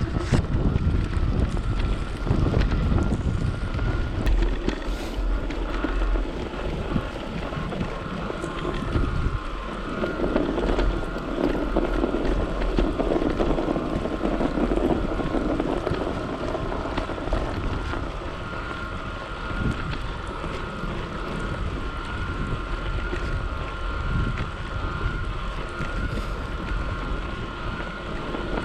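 Strong wind buffeting the microphone on a moving e-bike in a blizzard, a constant rushing and rumbling. A thin, steady high whine runs underneath.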